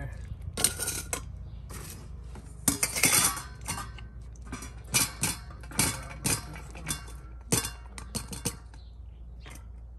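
A colander knocking and scraping against stainless steel dog bowls as boiled ground beef is shaken out of it: about a dozen irregular clinks and knocks, the loudest run of them about three seconds in.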